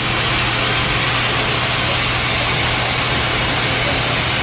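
Pet grooming blow dryer running steadily: a loud, even rush of air over a constant low motor hum.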